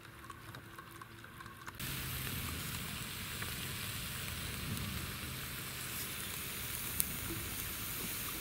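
Meat sizzling steadily on a Coleman portable camp grill, a constant hiss that comes in suddenly about two seconds in, with one small click near the end.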